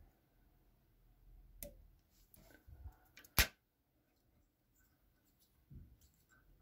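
Faint handling sounds of hands working thread on a fly held in a tying vise, with a few short clicks. The loudest is a single sharp click about three and a half seconds in.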